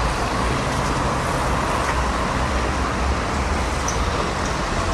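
City road traffic: cars and other motor vehicles passing with a steady rumble and tyre noise, no single vehicle standing out.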